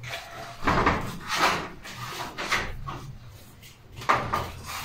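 Aluminium-framed glass sliding door panel being worked into its track, with several short scrapes, knocks and rattles as it is pushed and seated, top first and then the bottom.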